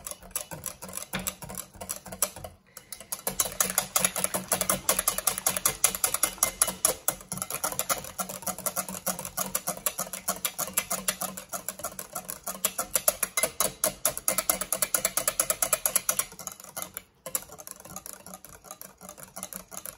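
Metal wire whisk beating a butter-and-oil cream in a glass bowl: rapid, steady clicking and scraping of the wires against the glass, with two short pauses, one a few seconds in and one near the end.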